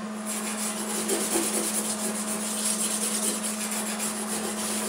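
Wire-feed (MIG) welder arc crackling continuously as weld is laid onto a truck door's thin, rusty sheet steel. It starts about a third of a second in.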